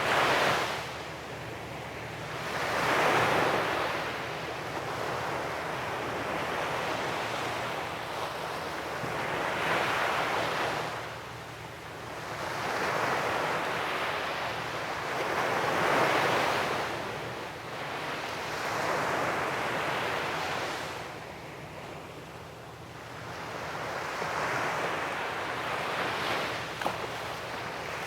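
Sea waves breaking and washing up on a beach. The surf swells and recedes in a steady rhythm, with a loud crest every few seconds.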